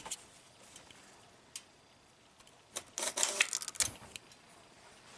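A few sharp clicks, then a dense clatter of clicks and scrapes lasting about a second, beginning about three seconds in. It is metal test leads being touched and scraped against a ground point to drive the electronic wastegate actuator's motor by hand.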